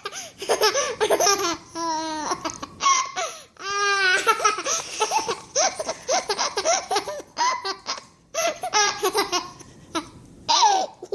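A baby laughing and vocalising in repeated high-pitched bursts.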